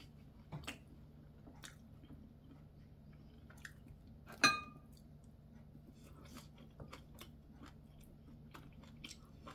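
Quiet chewing with small mouth clicks, and about four and a half seconds in a single sharp ringing clink of metal chopsticks against a porcelain rice bowl.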